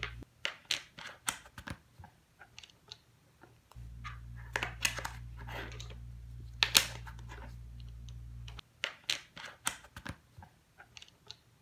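Plastic interlocking building blocks handled and snapped together on a table: a run of irregular light clicks and taps, with one louder snap near the middle. A low steady hum comes in about four seconds in and stops shortly before the end.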